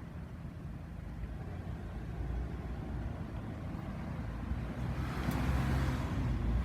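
A vehicle's low rumble growing steadily louder as it approaches, with a rushing noise building from about five seconds in.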